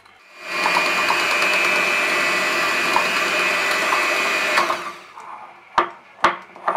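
Electric hand mixer beating buttercream in a glass bowl: the motor starts about half a second in and runs steadily with a high whine for about four seconds, then winds down and stops, followed by a few sharp knocks.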